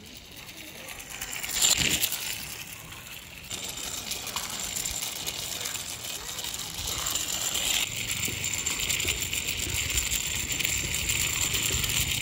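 Small plastic toy bicycle pushed by hand along a rough concrete wall top: its plastic wheels rolling and scraping with a light rattle. A brief louder swell comes about two seconds in, and the scraping grows denser and steadier over the last few seconds.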